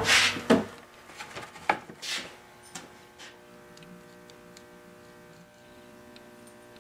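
A wooden chair being laid on its back on a cloth-covered workbench: a few knocks and scrapes of wood in the first two seconds, then a faint steady hum for the rest.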